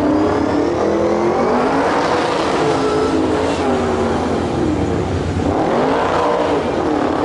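1972 Chevrolet K5 Blazer autocross race truck's engine revving hard on a timed run. The pitch climbs, sags about four seconds in as the driver lifts, then climbs again near the end.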